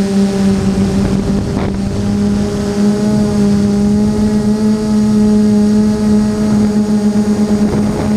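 Armattan FPV quadcopter's motors and propellers humming at a steady pitch in flight, with brief rushes of air about a second and a half in and again near the end.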